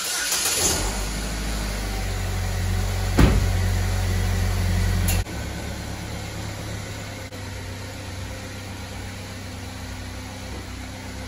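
A 2012 Chevrolet Equinox's 2.4-litre four-cylinder engine starts abruptly and runs steadily, its exhaust newly fitted with a replacement catalytic converter. There is a single knock about three seconds in, and the engine sound drops in level about five seconds in as the car reverses out.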